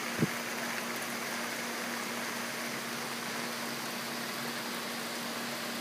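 Heavy thunderstorm rain falling steadily, an even hiss, with a faint low hum underneath and a brief thump just after the start.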